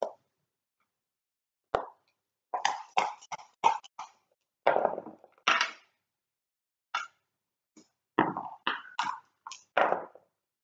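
Backgammon checkers and dice clacking on the board: irregular sharp clacks, some single and some in quick clusters, with silent gaps between them.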